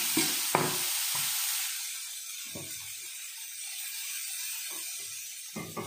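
Appam batter sizzling in a hot, oiled cast-iron pan just after being poured in, a steady hiss that fades down after the first couple of seconds. A few light knocks sound over it.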